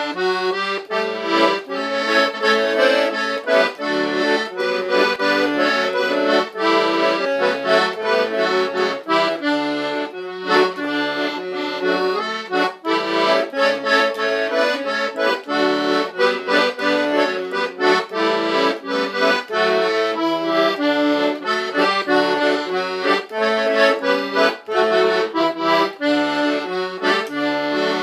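Instrumental music played without singing: a quick, busy melody of many short notes over short repeated bass notes.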